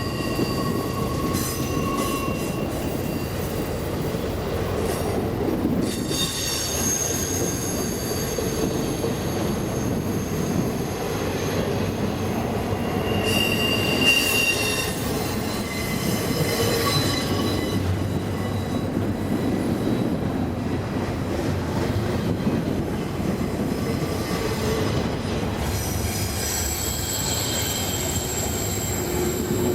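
Freight train cars rolling past with a steady rumble and clatter of wheels on rail, overlaid by high-pitched wheel squeals that start and fade several times.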